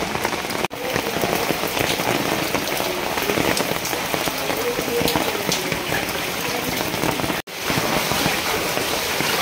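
Heavy rain falling steadily as a dense hiss, cutting out for an instant twice.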